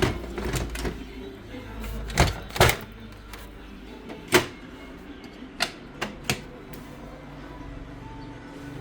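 A series of sharp hard-plastic clicks and knocks, about eight, with the loudest pair about two seconds in and another in the middle: a laser-printer toner cartridge being handled and taken apart.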